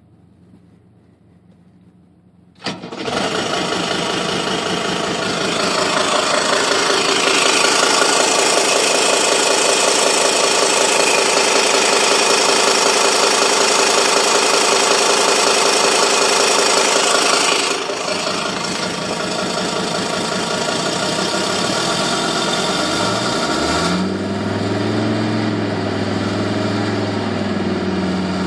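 1984 Mercedes-Benz 300SD's five-cylinder turbodiesel running at idle with a very loud rhythmic tick and rattle from underneath the engine compartment, which the owner links to the flex plate. It comes in suddenly after a couple of seconds of near quiet, eases somewhat later on, and near the end the engine pitch rises and falls a few times.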